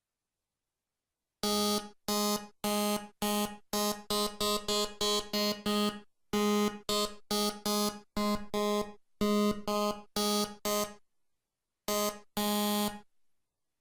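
Software synthesizer in LMMS playing a run of short, buzzy notes, all at the same pitch, about two to three a second. The notes start a second and a half in, pause briefly near the end, and finish with two last notes.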